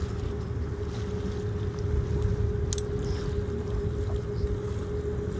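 Tour boat's engine running steadily, a constant hum over a low rumble, with wind on the microphone.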